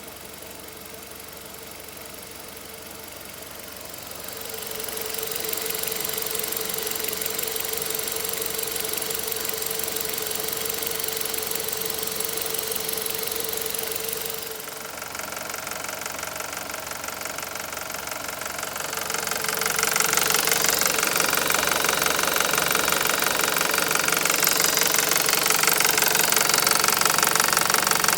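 2001 Volkswagen New Beetle's 1.8-litre turbocharged four-cylinder engine running with a rapid knocking. It gets louder about four seconds in and again about twenty seconds in.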